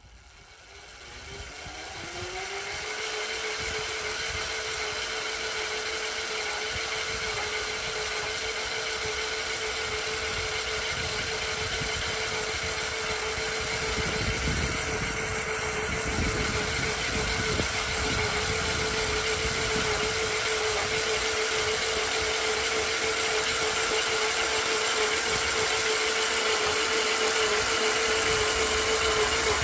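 Electric cultivator run through a frequency inverter, its motor spinning up to speed over the first two or three seconds with a rising whine, then running steadily as it tills the soil.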